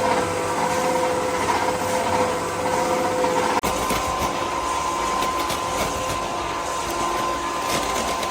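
Motor-driven workshop machinery running steadily with a whine; the sound breaks off and changes pitch abruptly about three and a half seconds in.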